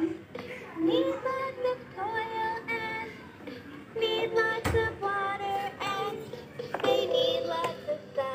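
LeapFrog Water & Count Veggie Garden toy playing its electronic children's song through its small speaker, a sung voice over a simple melody. There is a single knock about halfway through.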